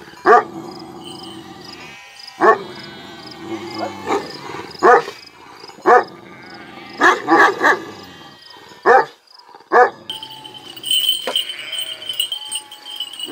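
Kangal shepherd dogs barking, single sharp barks every second or two with a quick run of three in the middle, then falling quiet near the end. The dogs are squabbling among themselves, which the shepherd puts down to the females being in heat.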